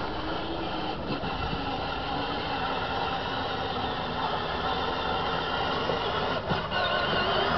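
Battery-powered toy ride-on motorcycle running steadily, its electric motor and gears giving a continuous whine that grows a little louder near the end.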